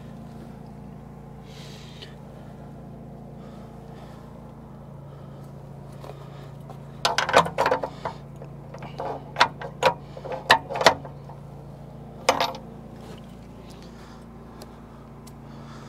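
Sharp metallic clicks and knocks from a steel stiffener plate and hand tools being handled and tapped into alignment on a skid-steer track frame, bunched between about seven and eleven seconds in with one more a little later, over a steady low hum.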